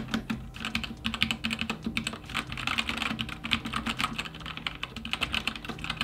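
Fast typing on a Keychron K2 mechanical keyboard with red linear switches: a rapid, uneven patter of many keystrokes a second, with no switch click.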